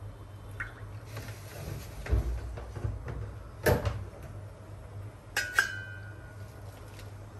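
Kitchen handling noises around a stainless steel pot of greens: a dull thump, a sharp knock, then two quick metallic clinks that ring briefly, over a steady low hum.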